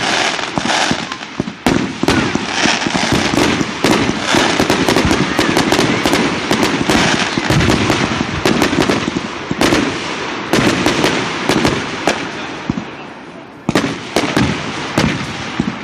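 Fireworks going off in a dense, continuous barrage of bangs and crackling, with a brief lull about three-quarters of the way through before it picks up again.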